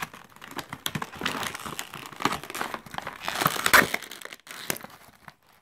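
Cardboard-and-plastic toy blister packaging being torn and crinkled open by hand: irregular ripping and crackling with sharp snaps, loudest a little past halfway and dying down near the end.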